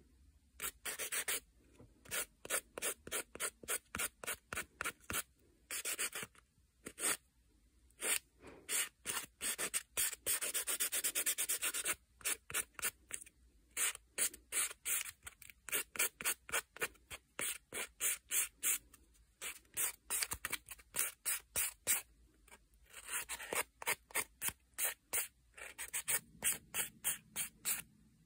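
Hand nail file rubbing back and forth across gel nail extensions in short rasping strokes, about four a second, with brief pauses between runs and a faster, almost continuous run near the middle.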